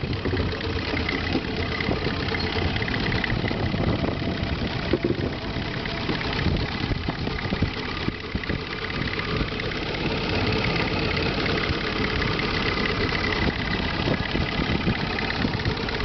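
Long-tail boat's exposed, uncovered car-type engine running steadily.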